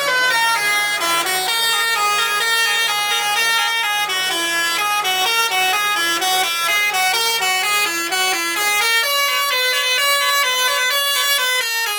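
Indonesian 'telolet' musical bus air horn playing a tune, a quick run of stepped notes changing about three times a second, with no break.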